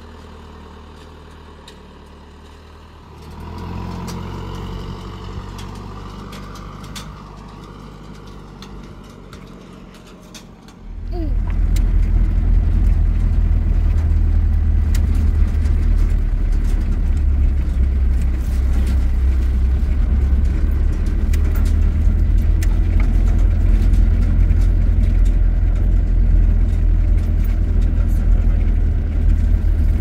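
A motor vehicle's engine running: a low hum at first, then much louder and steady from about a third of the way in.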